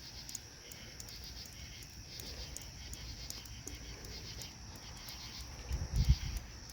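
Night insects, crickets or katydids, chirring steadily at a high pitch, with a brief low thump about six seconds in.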